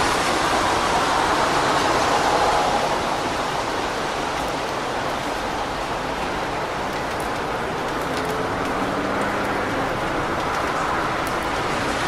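Steady rain on a wet city street with traffic: the hiss of car tyres on the wet road swells and then fades about three seconds in, leaving an even rain wash with a faint engine hum.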